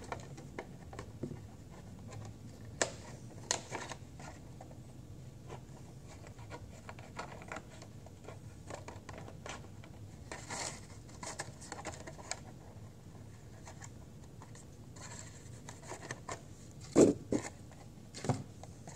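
Scissors snipping and working through a thin plastic flower pot, with scattered clicks and crackling of the plastic as the pot is turned in the hands. Two louder knocks come near the end.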